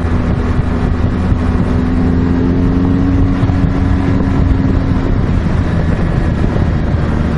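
BMW R 1200 GS Adventure's liquid-cooled boxer twin running under way. The engine note climbs slightly over the first three seconds, holds, then drops away about five seconds in.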